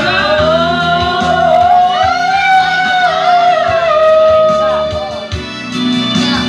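A girl singing one long, high, wordless note into a karaoke microphone over a karaoke backing track. The note swells slightly and breaks off about five seconds in, leaving the backing music playing.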